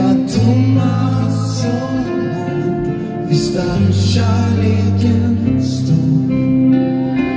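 Live band music in an arena, sustained guitar and keyboard chords over a steady bass line, with bright cymbal-like crashes now and then.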